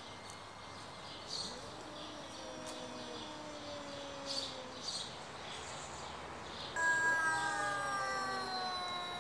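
Two cats, a Siamese-type and a ginger, yowling at each other in a territorial standoff: long, low, drawn-out growling yowls, then about seven seconds in a louder, higher wail that slowly falls in pitch. Short bird chirps sound now and then in the background.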